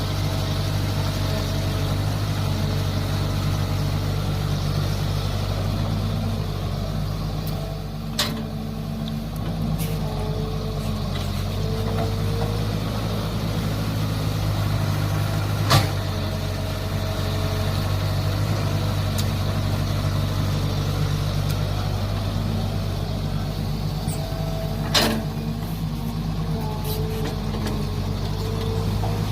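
Mini excavator's engine running steadily under load while digging, with the pitch of its working sound shifting now and then. Three sharp clanks stand out, about 8, 16 and 25 seconds in.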